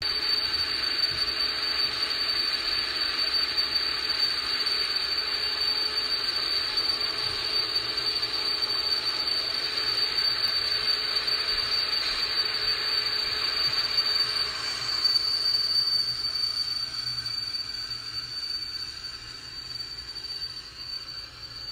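Model train running on a wall-mounted shelf track: a steady high-pitched squeal over a rushing rolling noise, fading from about fifteen seconds in as it moves away.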